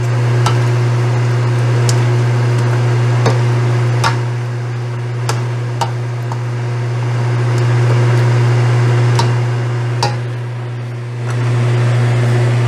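Chicken sizzling in a stainless steel pan while a plastic spatula stirs it, knocking sharply against the pan about nine times at an irregular pace, the knocks ending near the end. A steady low hum runs underneath.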